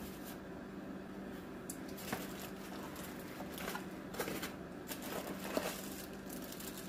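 Packaging being handled as a box is unpacked: irregular rustling and crinkling, heaviest from about two seconds in until near the end, over a steady low hum.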